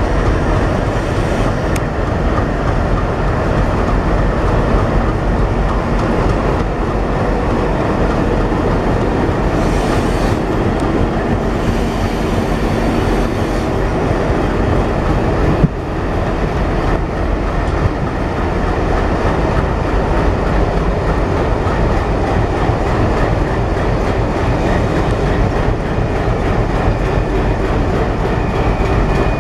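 Four Indian Railways diesel locomotives, WDM3D and WDG3A units of ALCO design coupled together and running light with no train, passing at close range: a loud, steady diesel engine drone mixed with the rumble and clatter of wheels on the track. A single sharp knock about halfway through.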